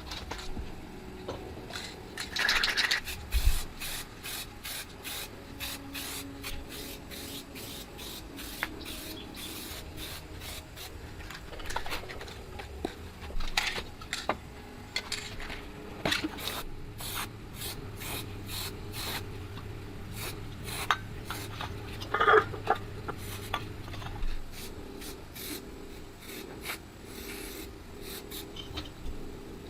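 Hand-tool scraping and rubbing on parts of an old water purifier under repair, broken by many light clicks and a couple of louder clinks, one a few seconds in and one about three-quarters through.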